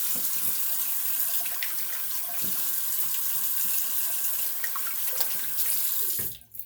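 Bathroom sink tap running steadily with water splashing as the shaver rinses off between shaving passes, then shut off suddenly near the end.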